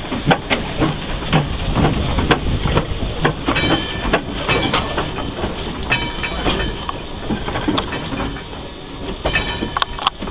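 Saddle-tank steam locomotive and goods brake van rolling slowly past close by, wheels clanking and clicking over the rail joints, with a few brief high metallic squeals.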